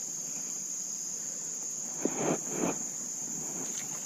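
Insects trilling steadily in one high-pitched chorus, with two or three short rustling handling noises about two seconds in.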